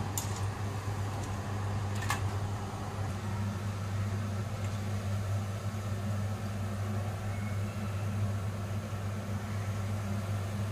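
A steady low electrical or motor hum under a faint hiss, with two light clicks about two seconds apart near the start.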